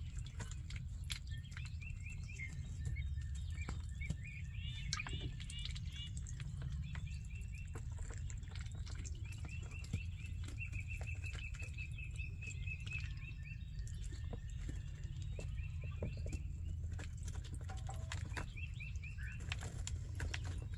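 Week-old ducklings and goslings peeping in quick runs of short, high notes that come again and again, over a steady low hum, with scattered light taps.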